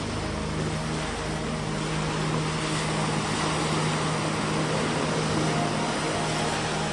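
A boat's engine running steadily under the rush of water and wind.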